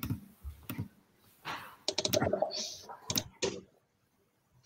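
A few irregular clicks and taps of a computer keyboard and mouse, heard through a video-call microphone.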